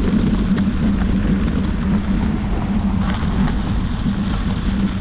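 Steady wind rush on the microphone over a constant low hum and rumble, as from moving along a trail.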